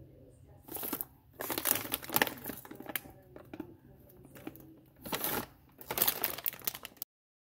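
Thin plastic steam-in-bag food packets crinkling as they are handled, in several separate bursts of rustling. The sound cuts off to dead silence near the end.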